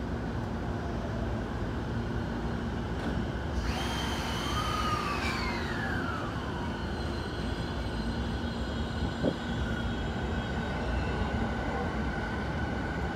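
A JR East 209 series 500 electric train pulls away from the platform with a low rumble. About four seconds in, its motors give a whine that briefly rises and then falls away over a few seconds, leaving steadier high tones. A single sharp knock comes about nine seconds in.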